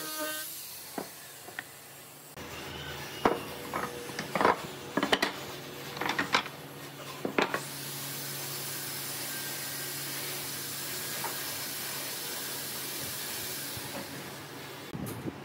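An angle grinder with a sanding drum cuts off at the very start. Then comes a cluster of sharp wooden knocks as slats and rails are handled on a wooden workbench, followed by a steady hiss.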